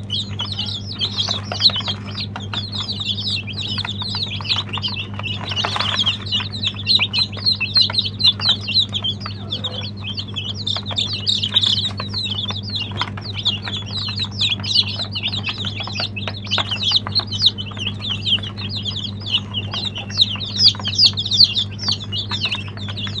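A flock of baby chicks peeping together: a dense, continuous chorus of short, high, falling chirps over a steady low hum.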